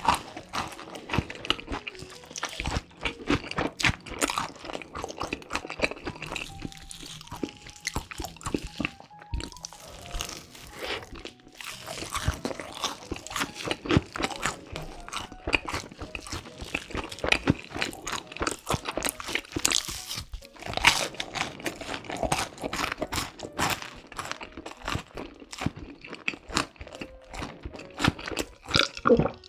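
Close-up crunching and chewing of a crispy breaded pork cutlet coated in crushed Flamin' Hot Cheetos: many sharp, irregular crunches of bites and chewing, over quiet background music.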